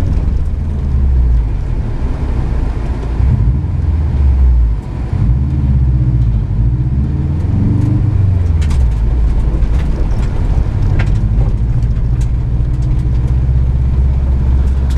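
Car engine heard from inside the cabin while driven hard on a dirt course. Its pitch rises and falls with revving and gear changes, and it lifts off briefly about five seconds in. A few sharp clicks come in the second half.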